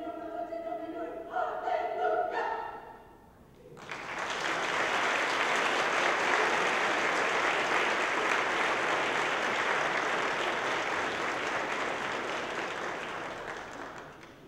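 A women's choir sings the last held chords of a piece, the chord changing twice before cutting off about three seconds in. After a brief pause the audience applauds, and the applause dies away near the end.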